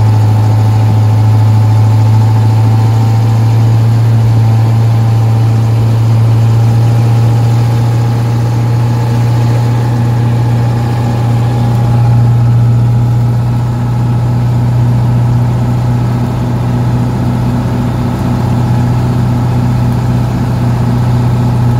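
Vehicle engine running as a steady low drone, heard from inside the cab while driving.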